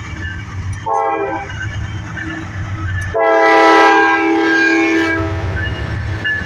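Norfolk Southern diesel locomotive's air horn: a short blast about a second in, then a longer, louder blast near the middle. A steady low rumble of the locomotive's diesel engine runs underneath.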